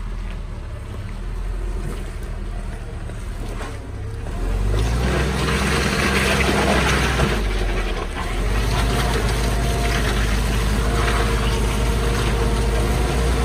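Willys flat-fender jeep engine running at low revs, then revving up about four and a half seconds in and holding steady under load as the jeep crawls through deep ruts.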